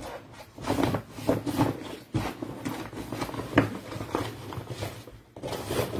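Rustling and handling of a folded fabric utility tote as it is opened up, with a sharper knock about two seconds in and another a second and a half later.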